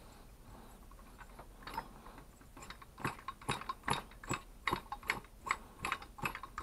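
Flywheel of a STIHL hedge trimmer's two-stroke engine being turned by hand, giving sharp regular clicks about two and a half times a second that start about three seconds in.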